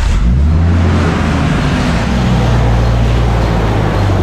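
Nissan RB25DET turbocharged straight-six in an R33 Skyline, just started and running at a steady idle. The graunchy noise from under the timing-belt cover, suspected to be a failing idler bearing, is not really audible now that the engine is warm.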